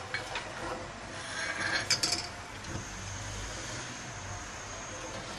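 Metal ladle stirring milk in a metal pot, scraping and clinking against the pot's side, with the loudest knocks about two seconds in.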